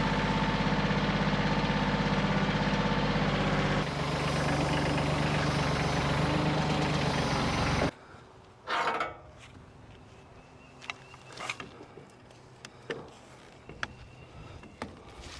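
An engine running steadily, dropping to a lower note about four seconds in, then shut off abruptly about halfway through; afterwards only a few light knocks and clinks.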